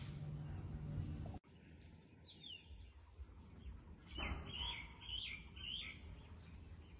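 Background music that cuts off about a second and a half in, then small birds chirping: one short call, then a run of quick, falling chirps.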